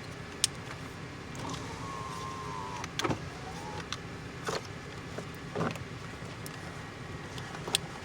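Honda Civic power window motor running to move the door glass: a steady whine for about a second and a half that stops with a click, followed by a few scattered clicks and knocks.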